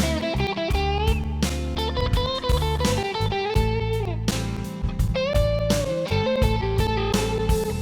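Instrumental background music: an electric guitar plays a melody with bent notes over bass and drums.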